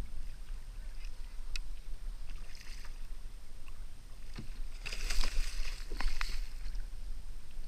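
Water lapping and wind around a kayak, with light knocks of gear on the hull and a burst of splashing about five seconds in.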